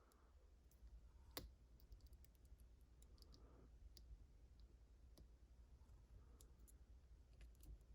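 Faint, scattered small metallic clicks of a hook pick and tension tool working the pins inside a JPM 405 pump lock, with one sharper click about a second and a half in.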